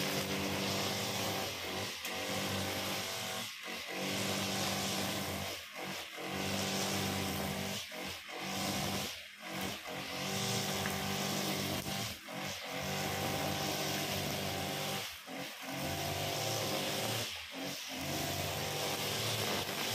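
Honda GX35 four-stroke brush cutter running at high speed while its blade cuts grass. The sound dips briefly every two to three seconds.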